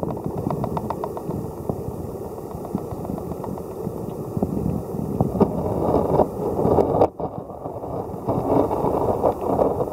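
Underwater noise picked up by a submerged camera: a steady low rumble of moving water with irregular clicks and crackles. It swells louder about five to seven seconds in, drops out sharply for a moment just after that, and swells again near the end.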